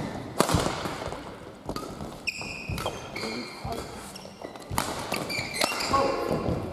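Badminton rally: rackets strike the shuttlecock with sharp hits about once a second, with short high squeaks of shoes on the court floor as the players move and lunge.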